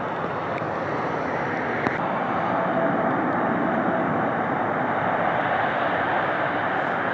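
Jet airliner engine noise: a steady rushing sound that grows slightly louder about two seconds in, with a faint whine over it.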